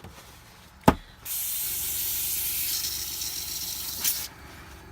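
Airbrush spraying pure water through to flush out the last of the ink. A sharp click comes just under a second in, then a steady hiss of air and water that stops shortly before the end.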